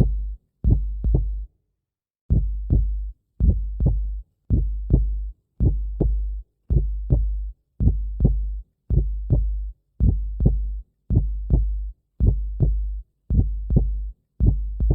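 Heartbeat sound effect: deep lub-dub double thumps in a steady rhythm, about one pair a second, with a pause of about a second near the start.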